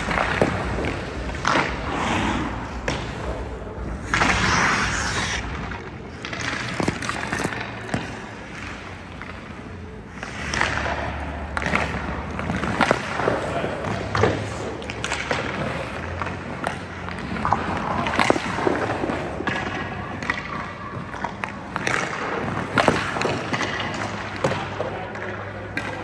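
Hockey skates scraping and carving on the ice, with sharp knocks of sticks hitting pucks and pucks thudding off a goalie's pads, repeated many times.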